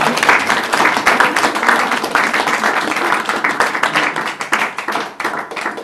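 Applause: many hands clapping together, dying away near the end.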